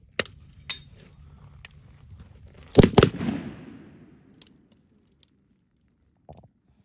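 7.62 mm M240B machine guns firing on the range: two sharp shots in the first second, then the loudest, two shots close together about three seconds in, with an echo trailing off for about a second. A fainter crack comes near the end.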